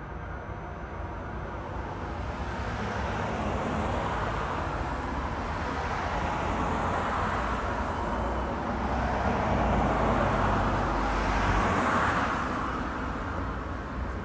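Road traffic: cars passing one after another, their tyre and engine noise swelling and fading over a steady low rumble, loudest about ten to twelve seconds in.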